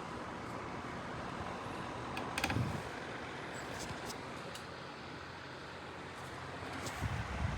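Electric fan running steadily with an even rush of air noise. A few clicks and a dull thump come about two and a half seconds in, and again near the end.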